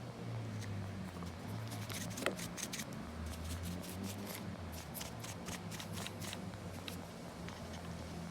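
Quick series of sharp plastic clicks and rattles, as from fan parts being handled and taken apart for cleaning, with one louder snap about two seconds in, over a low steady hum.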